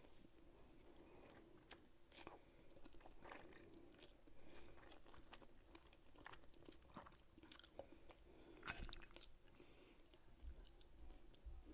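Faint close-up chewing of pasta and seafood, with scattered small wet clicks and smacks of the mouth, over a faint steady hum.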